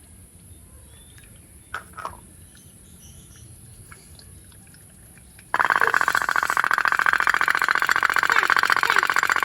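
Toy pop-pop boat (kapal otok-otok) starting to run. After a quiet stretch with two light clicks, a loud, fast putt-putt rattle starts suddenly about five and a half seconds in and keeps going steadily. That is the sign its boiler has got hot enough.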